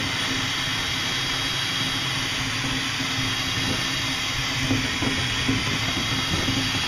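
DeWalt cordless drill running steadily at speed, spinning a tool inside the propeller-shaft tube to smooth the bore where the bearing will sit; a constant whine with a rasping hiss.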